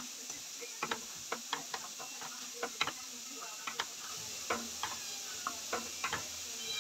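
Wooden spatula stirring minced beef and vegetables in a metal pot, knocking and scraping against the pot in irregular clacks about two a second, over a faint steady hiss.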